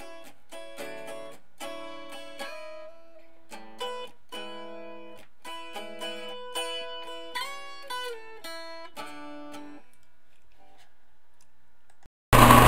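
Guitar playing a slow picked melody of single plucked notes and chords, stopping about ten seconds in. A loud steady noise cuts in suddenly near the end.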